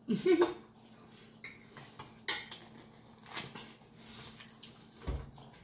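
Scattered clinks and clicks of cutlery on plates at the table, with a low thump about five seconds in.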